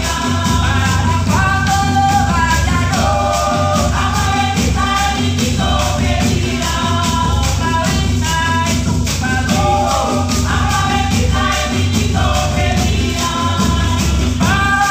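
Colombian Pacific marimba ensemble playing live: voices singing over marimba, bombo and cununo hand drums, with guasá shakers keeping a steady, even beat.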